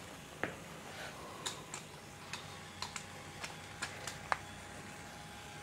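Light, irregular clicks, eight or nine over about four seconds, over a faint steady high hum.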